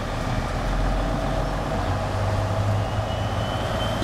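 A steady low engine hum, like a vehicle idling, with a faint steady whine over it.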